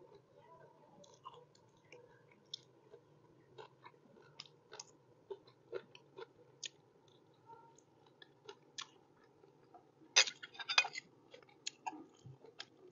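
A person chewing and eating water spinach with egg: scattered short mouth clicks and smacks, with a louder run of clicks about ten seconds in.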